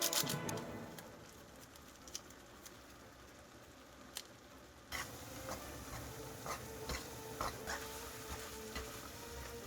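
Scattered light clicks and taps of food being handled and prepared, quieter at first and a little busier from about halfway through.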